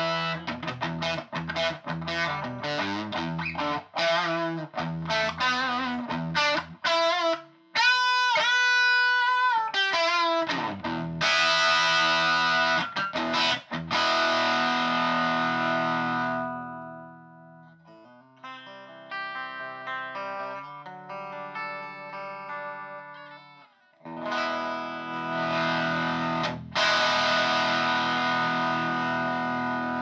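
1955 Gibson Les Paul Junior electric guitar played through a Bell & Howell 614 AQ Filmosound projector amplifier converted into a guitar amp, with a slightly overdriven tone. Strummed chords give way to a few bent single notes about eight seconds in, then held chords. A quieter stretch of picked notes follows, and strummed chords return near the end.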